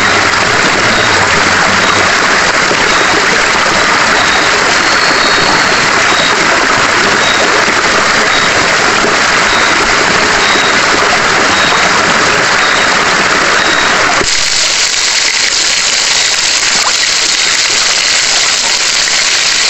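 Shrimp deep-frying in oil in a wok over a wood fire: a loud, steady sizzle. About 14 seconds in the sizzle turns suddenly brighter and more hissing.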